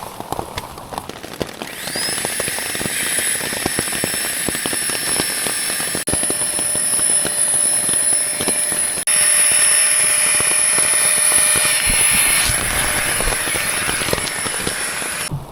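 Steady rushing of water from rain and a mountain stream, starting about two seconds in after a few seconds of scattered drips and taps. It shifts abruptly in level twice and cuts off sharply near the end.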